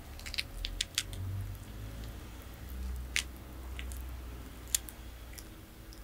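A tortoise biting and chewing food: irregular, sharp, crisp clicks as its beak snips through the food, a cluster in the first second and single louder ones about three and nearly five seconds in, over a low rumble.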